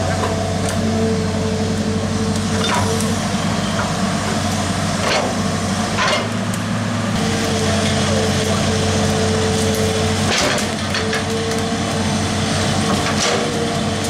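Hydraulic excavator (Hitachi) running steadily while digging, its diesel engine holding a low drone with a higher tone that comes and goes. Several sharp knocks and cracks come as the bucket works through soil and brush.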